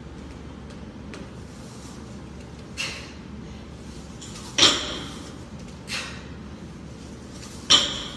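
Barbell loaded with Rogue bumper plates knocking and clanking with each deadlift rep. There are two loud clanks a few seconds apart as the bar touches down on the rubber mats, with lighter knocks of the plates between them.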